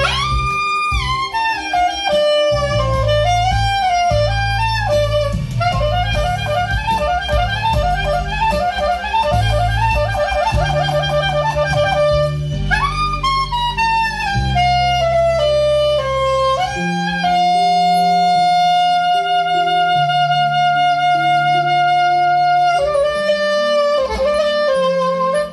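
Soprano saxophone, just back from repair, playing a slow song melody over an accompaniment with a bass line. Quick running notes fill the first half, and in the second half one note is held for about six seconds.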